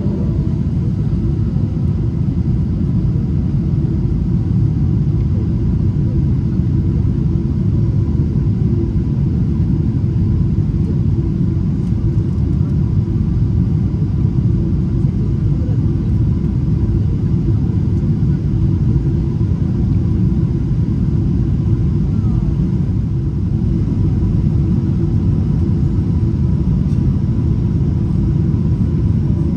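Steady low cabin rumble of a Boeing 777-300ER on approach with flaps extended, from its GE90 engines and the rushing air, with a faint steady whine above it.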